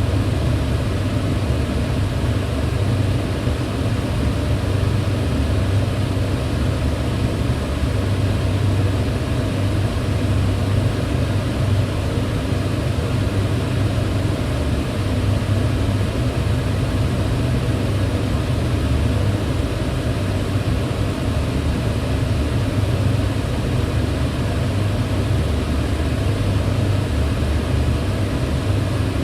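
Kitchen range hood fan running steadily: a constant low hum under an even rush of air, with no change in speed.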